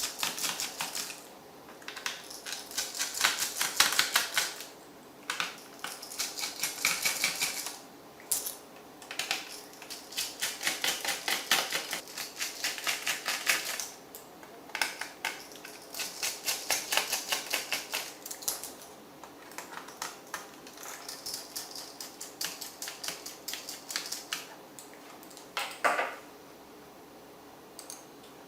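Rapid trains of small plastic clicks and ticks come in bursts of a second or two, with short pauses between them and one sharper knock near the end. These are the sounds of a laptop's plastic case and screws being worked with small tools during disassembly.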